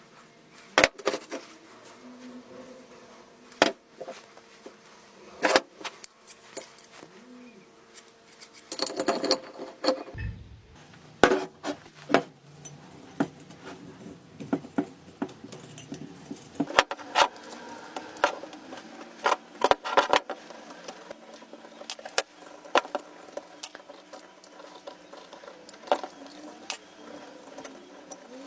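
Steel vise parts clinking, knocking and rattling as they are handled, in irregular sharp strikes every second or so with short clattering stretches.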